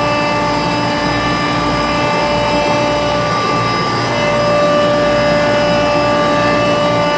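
Trane RTAA air-cooled screw chiller running: a loud, steady mechanical drone carrying several constant whining tones.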